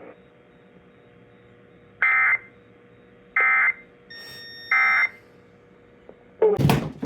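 Emergency Alert System end-of-message tones on a NOAA Weather Radio broadcast: three short, identical, buzzy data bursts about a second and a half apart over faint radio hiss, marking the end of the severe thunderstorm warning. A thin steady beep sounds under the third burst, and a loud burst of noise follows near the end.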